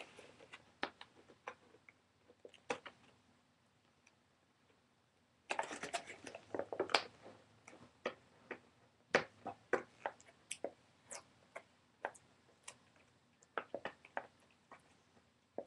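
Hands working at a cardboard-and-plastic action-figure box and its tape: scattered small clicks and crinkles, with a longer stretch of rustling about five and a half seconds in.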